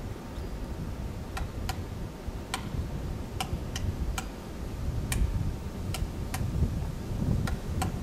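Pileated woodpecker chiseling into a hemlock trunk to feed: single sharp knocks of its bill on the wood, irregularly spaced at about one or two a second, starting about a second and a half in. A low rumble runs underneath.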